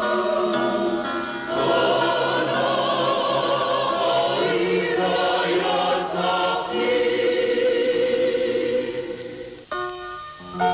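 A choir singing slow, held notes with vibrato; the singing dies away near the end.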